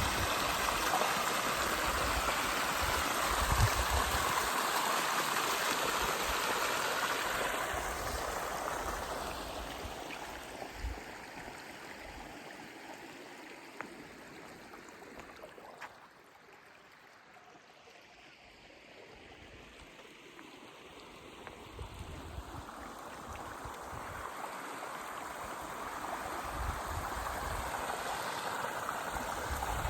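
Mountain stream running over rocks, a steady rush of water that fades to faint about halfway through and swells back up toward the end. A few low thumps are on the microphone.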